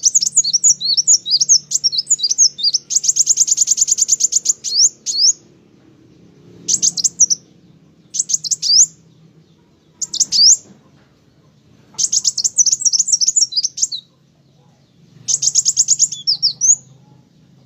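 Kolibri wulung (kowul), a sunbird, singing hard: bouts of very high, fast-sliding chirps and rapid trills, a long run at the start and then shorter bursts with pauses between.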